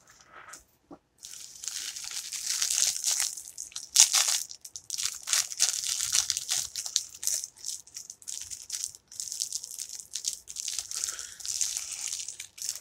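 Clear plastic wrapper of a snack cake roll crinkling as it is handled and opened, in dense, irregular crackles starting about a second in.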